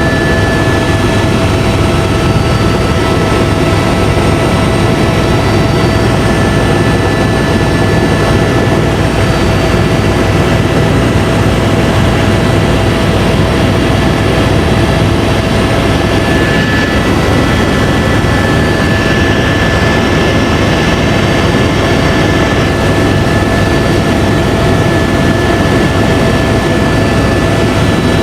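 Tour helicopter in steady flight, heard from inside the cabin: a loud, constant drone of turbine and rotor with a steady high whine over it.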